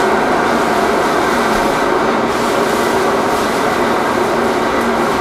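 A loud, steady rushing noise with no rhythm and no change in level.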